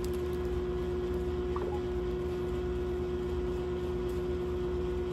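Steady low electrical hum with one constant tone and an even rumble beneath it.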